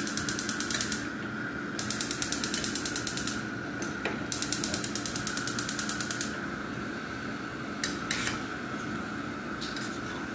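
Frying pan being shaken quickly back and forth on a gas stove grate, with whole raw shrimp rattling inside. It comes in three bursts of fast, even rattling, then a few single knocks. The shaking dries off the rinse water before frying.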